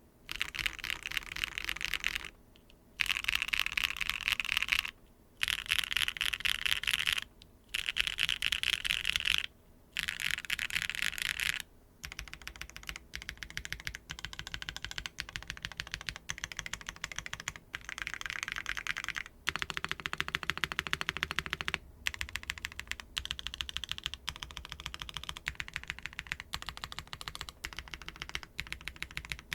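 Custom mechanical keyboard typed on: BSUN Strawberry Cheesecake R2 tactile switches with POK housings and LY stems, in a foamless Neo 75 Cu with a carbon fibre plate and GMK keycaps, giving a deep, thocky keystroke sound. It starts with five short bursts of fast typing with brief pauses between them, and after about twelve seconds turns into steady typing.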